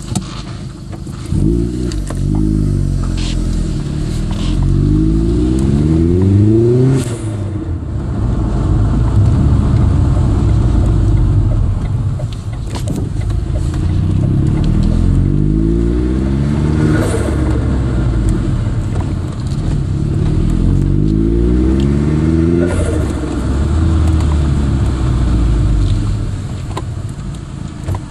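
Vauxhall Astra VXR's turbocharged four-cylinder petrol engine pulling through the gears, heard from inside the car: the revs climb in several pulls, each dropping at an upshift, with steadier running in between.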